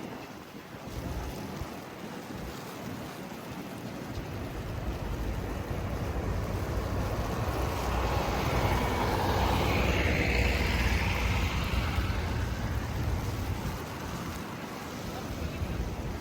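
A vehicle passing on a snowy street, its rumble and tyre hiss swelling to a peak around the middle and fading again, over steady wind noise.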